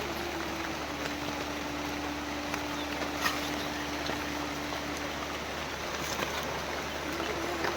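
Heavy rain falling steadily, an even hiss with a few sharper drip ticks. A low steady hum runs under it, stops about five seconds in and comes back near the end.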